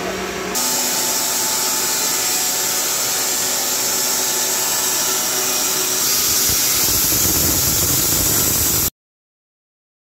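Carpathian SMSA 110 band sawmill running with its blade cutting through a squared timber beam: a loud, steady, high-pitched saw noise that comes in abruptly about half a second in, after a lower steady hum, and cuts off suddenly near the end.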